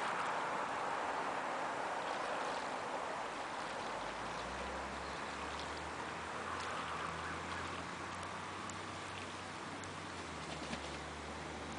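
Steady splashing and lapping of shallow water as Canada geese bathe, with faint light splashes. A low, steady engine hum comes in about four seconds in and runs on underneath.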